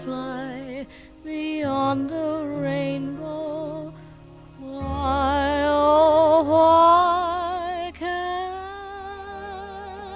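Slow, tender music: a melody of long, held notes with wide vibrato over a steady bass accompaniment, swelling to its loudest about five to seven seconds in.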